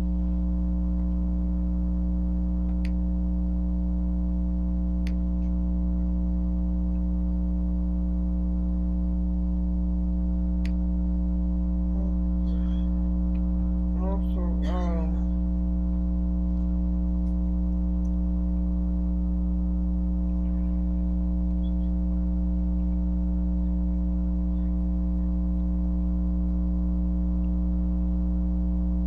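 Loud, steady electrical mains hum with a buzzy stack of overtones, unchanging throughout. A short rising squeak about halfway through and a few faint clicks.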